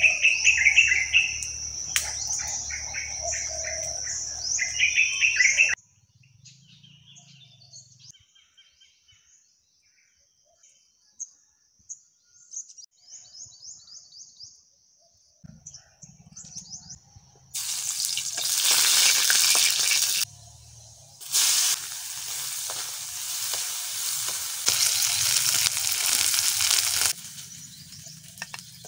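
Birds chirping over a steady high insect drone, cutting off after about six seconds to faint occasional chirps. About halfway through, food starts sizzling hard in hot oil in a wok. The sizzle breaks off for about a second, then runs on and dies down near the end.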